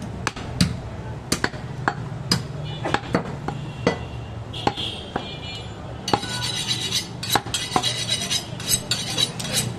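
Butcher's knife chopping and cutting goat meat on a wooden log chopping block: sharp knocks at uneven intervals, about one to two a second, over a steady low hum.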